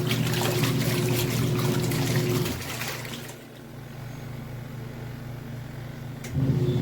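Twin-tub portable washing machine running, its motor humming steadily under churning, splashing water. The motor and the sloshing stop about two and a half seconds in, leaving a fainter hum, and start up again shortly before the end.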